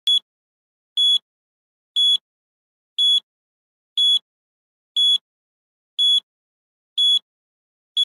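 A quiz countdown timer beeping: a short, high single-tone beep once every second.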